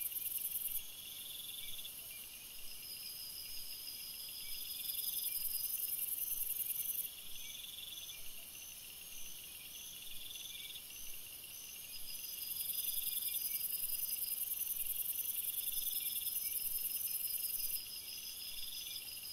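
Night insects chirping in several overlapping layers: steady runs of high chirps, a regular series of short chirps, and a still higher buzz that switches on and off in long stretches, loudest from about five to seven seconds in and again from about twelve to eighteen seconds.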